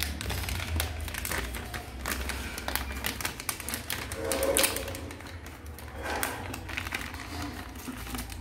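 Plastic snack pouch crinkling and crackling as it is torn open along its sealed edge and pulled apart by hand, in quick irregular rustles.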